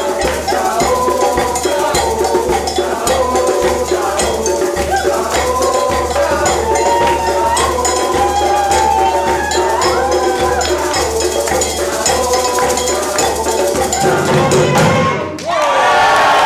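Live percussion band and saxophone playing an upbeat Latin-style groove: a steady bass-drum beat, cowbell and shakers under a melody line. Near the end the music stops abruptly and the crowd breaks into applause and cheering.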